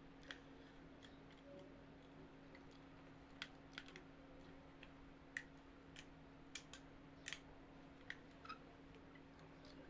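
Faint, irregular light clicks and taps of small plastic toy kitchen pieces being handled, over a faint steady hum.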